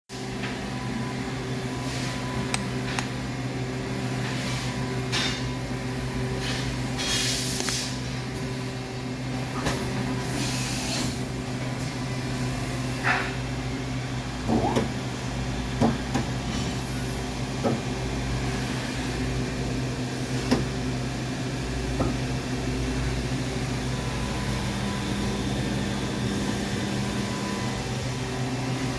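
Regent 1632AHD surface grinder running under power with a steady motor hum. Occasional knocks and clicks sound over it, with two brief hissing bursts in the first half.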